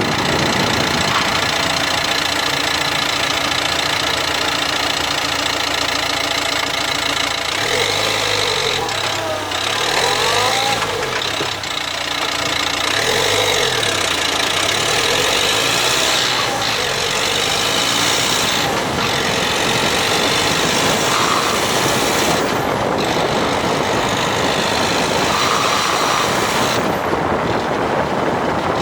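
A 2016 Dacia Duster dCi 4WD diesel running on the road, with a steady engine and drivetrain noise. Between about 8 and 16 seconds in, some tones rise and fall in pitch. The owner reports a grinding noise under acceleration from 1500 to 1800 rpm in 5th or 6th gear, and suspects a faulty drive shaft.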